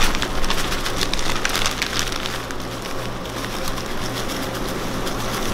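Crushed Oreo cookie crumbs pattering and crackling as they are poured and spread into a glass baking pan, densest in the first two seconds and thinning after, over a low steady hum.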